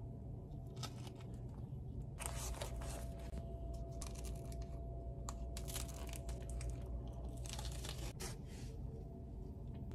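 Paper sandwich wrapper crinkling and tearing as it is handled and peeled back. There are a few scattered crackles at first, then a dense run of rustling from about two seconds in until about eight seconds in.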